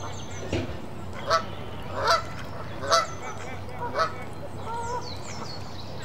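Geese honking: a series of loud honks about a second apart, dying away after about four seconds, with small birds chirping faintly over them.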